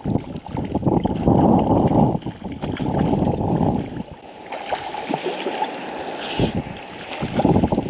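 Wind buffeting the microphone, then small waves splashing and lapping at a rocky shoreline from about four seconds in.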